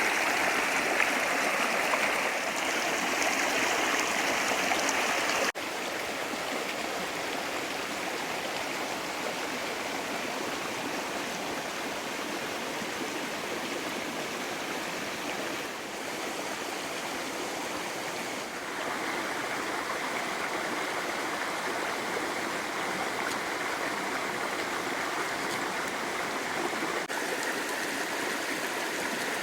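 Creek water running steadily over rocks, a continuous rushing. It is louder for the first five seconds, then drops suddenly to a lower, even level.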